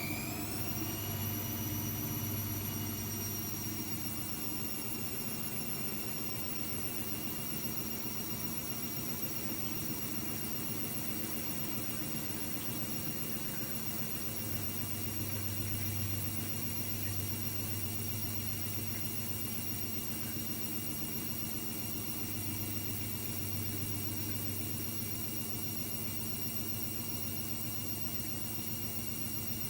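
AEG Lavamat W 1450 Electronic washing machine spinning a load of towels. Its high motor whine finishes rising about a second in and then holds steady at top spin speed over a low drum hum.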